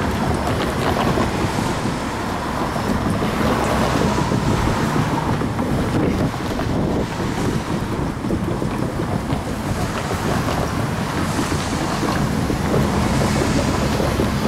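Freight train's tank cars and boxcars rolling past with a steady rumble, mixed with wind buffeting the microphone and cars driving by close to it.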